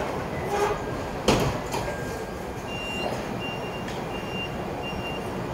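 Toyota forklift's reversing alarm beeping four times, evenly spaced, in the second half, after a sharp knock about a second in, over steady background noise.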